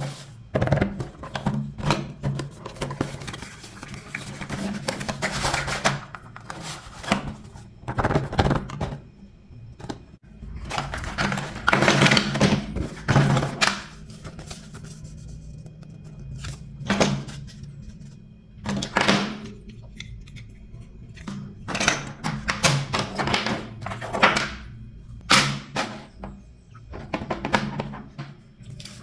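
Toy packaging being opened and handled: irregular bursts of rustling and crinkling, with knocks and thunks.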